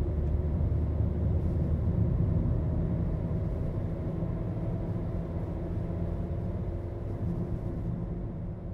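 Steady low rumble of road and engine noise inside a moving car's cabin, starting to fade near the end.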